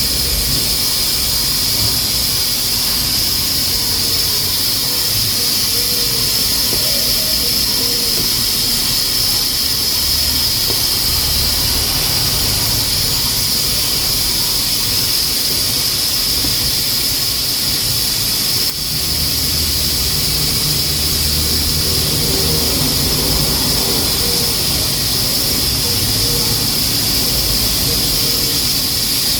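Pressure cooker on a wood-burning stove, hissing steadily as steam escapes from its valve, with a high steady whistling tone: the cooker is up to pressure.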